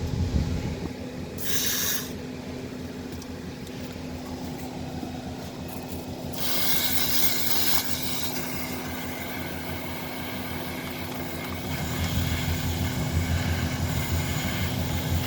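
Leaf blower running steadily, blowing air through a lint-clogged dryer vent line, with a louder rush of air hiss coming in about six seconds in.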